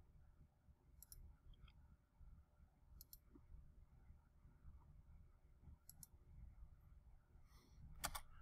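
Faint computer mouse clicks, about four of them a couple of seconds apart, each a quick press-and-release, as edges are selected in the software.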